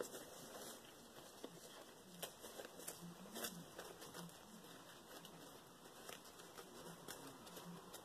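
Faint rustling and small crackles of tissue paper being picked and torn off the edges of sealed fabric.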